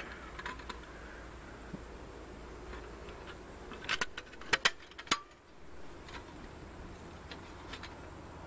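Coghlan's folding metal emergency stove being unfolded by hand: scattered light metal clicks, then a cluster of sharp clacks about four to five seconds in as its hinged sides swing open.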